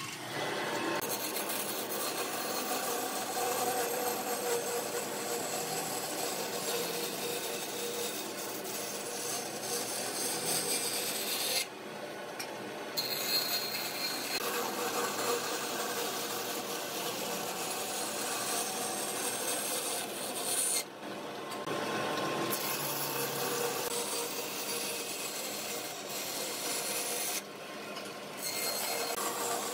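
A power tool working on wood, running steadily with a continuous abrasive noise. The noise changes briefly three times, about 12, 21 and 27 seconds in.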